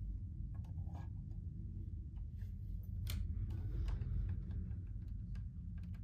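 Scattered small clicks and light rustling handling noises over a steady low hum.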